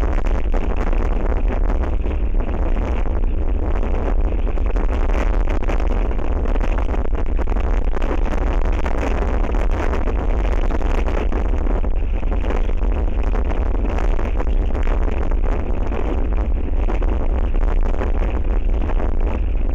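Strong wind buffeting the outdoor camera's microphone: a steady, loud low rumble with a rushing hiss over it.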